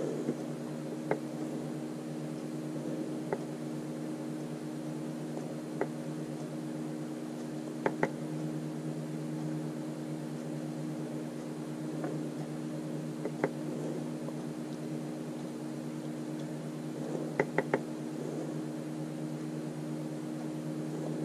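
A steady low appliance hum, like a fan or air conditioner, with sharp little clicks and taps every few seconds, and a quick run of them about three-quarters of the way through, as a stick dots paint onto bottle caps and the caps are handled.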